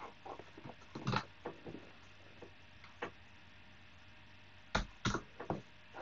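Computer keyboard being typed on: quick clusters of key clicks in the first two seconds, a lone click at about three seconds, then a few louder key strikes near the end.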